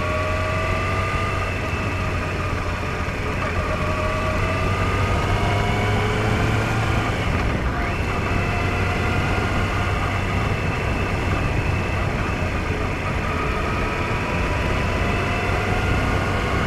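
Motor vehicle engine running under way, its pitch rising slowly as it accelerates, then dropping once about seven and a half seconds in at a gear change before climbing again, over steady wind and road noise.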